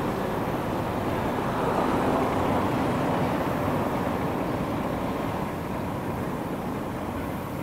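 A steady outdoor rumble of vehicles. It swells about two seconds in and then slowly eases off.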